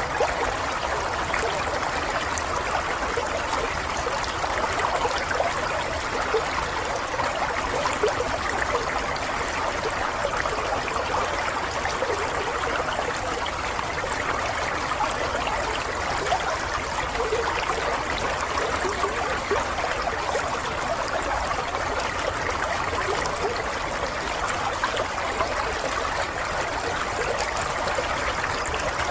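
Flowing water, a steady unbroken rush with fine splashing detail throughout.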